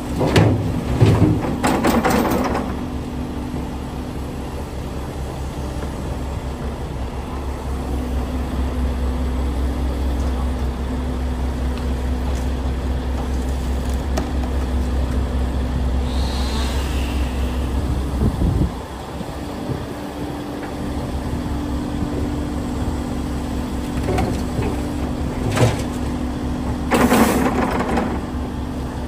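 Tracked excavator's diesel engine running steadily under load, with two crashes of dirt and rocks dumped from the bucket into the steel box of a dump truck: one in the first couple of seconds and another near the end.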